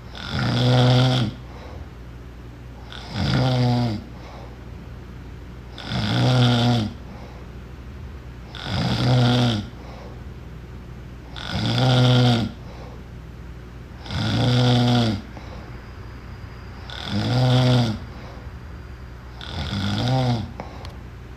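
Regular snoring: one snore about every three seconds, eight in all, each about a second long, with quiet gaps between.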